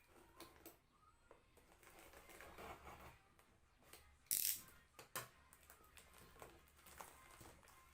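Faint handling of packaging as merchandise boxes are taken apart: small clicks and rustles of cardboard and plastic, with a louder brief rustling scrape about four and a half seconds in.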